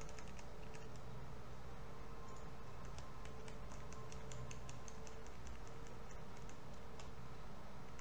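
Light, quick clicks of a computer mouse and keyboard, several a second and thickest in the middle stretch, over a steady hum.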